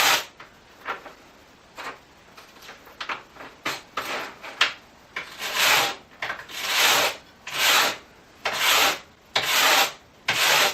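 Wire brush scrubbing sap and gunk off a chainsaw chain on a bench: light scrapes and clicks at first, then strong strokes about once a second.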